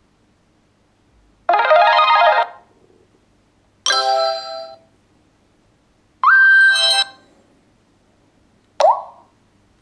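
Nokia X7 stock phone tones: four short electronic chimes, each about a second or less and each sounding different, spaced roughly two and a half seconds apart. The last two begin with a quick upward slide in pitch.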